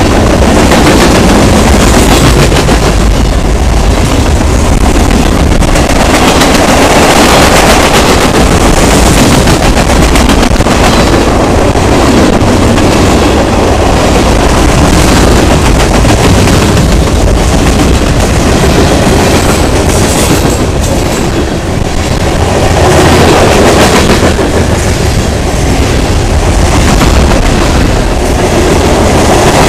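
Loud, steady sound of a freight train's cars rolling past close by: covered hoppers and tank cars rumbling along, their wheels clicking and clattering over the rail joints.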